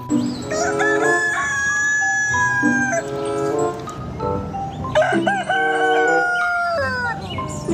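A rooster crowing twice, each crow a long drawn-out call of a couple of seconds, the second falling in pitch at its end.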